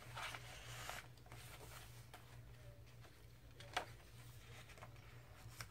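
Faint handling of paper journal pages: a soft rustle in the first second as a tag is moved, then a short sharp tap a little under four seconds in as a page is turned, over a steady low hum.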